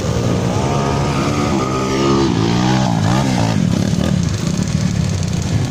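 Several trail motorcycle engines revving hard as the bikes climb a steep dirt slope, the pitch rising and falling with the throttle, with overlapping engines about halfway through.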